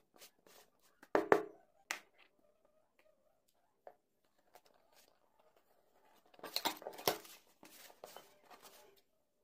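Cardboard shipping box being handled and shifted on a cutting mat: sharp knocks about a second in, a few light clicks, then a longer stretch of scraping and rustling cardboard in the second half.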